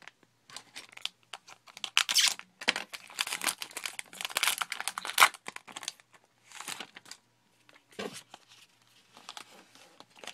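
Trading card pack wrapper crinkling and tearing as a pack is opened and its cards handled, in irregular rustling bursts, loudest between about two and five seconds in.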